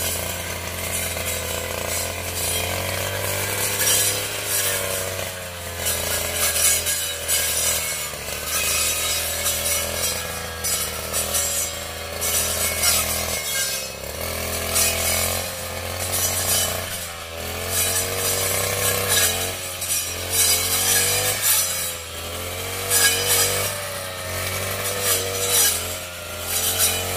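Powercat PCMF52 two-stroke brush cutter running under load, revving up and down in repeated surges as its head cuts through weeds and brush. The engine eases off briefly about halfway through.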